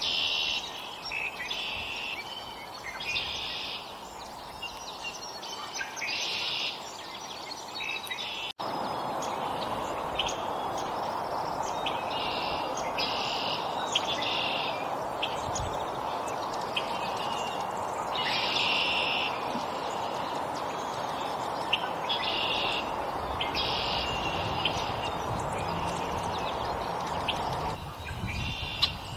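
Small songbirds chirping again and again, short high calls of about half a second each, every second or two. Under them runs a steady hiss, which gets louder after a brief break about a third of the way in.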